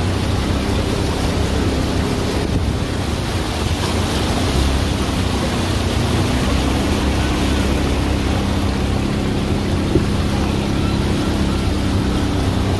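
A vehicle driving through shallow floodwater: a steady engine hum under the rush and splash of water pushed aside by the vehicle.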